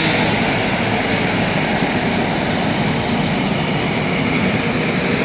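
Spray-foam insulation rig's machinery running with a steady, even noise.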